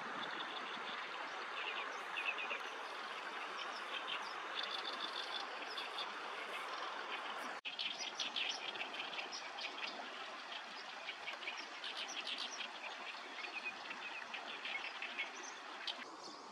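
Light-vented bulbul calling: many short, repeated chirps, busier in the second half, over a steady background hiss. The sound drops out for an instant about halfway through.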